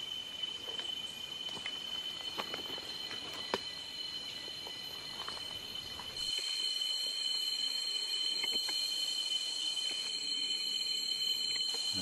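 Insects buzzing steadily at a high pitch, with a few faint clicks and rustles in the first half. About halfway through the buzz steps up a little louder.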